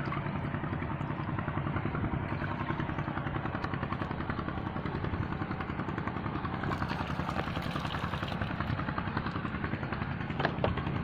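A small engine running steadily, with an even rapid pulsing that does not change.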